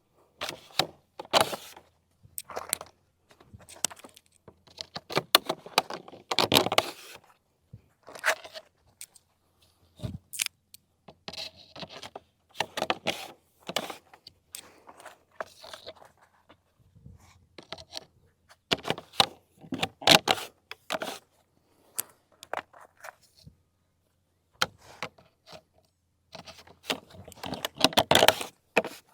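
Plastic parts of a MossBack artificial fish habitat being handled and fitted together: irregular clatters, scrapes and clicks in uneven bursts, with a busier cluster near the end.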